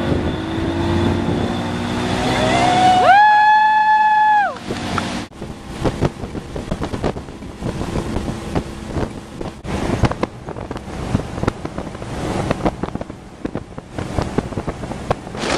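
Evinrude 150 outboard motorboat engine running at towing speed, with wind buffeting the microphone and the hiss of the boat's wake. About three seconds in, a loud high held note lasts about a second and a half; it slides up at its start and down at its end.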